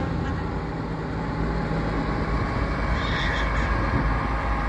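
Volvo F10 truck's diesel engine running steadily at low revs as the tractor unit pulls slowly away.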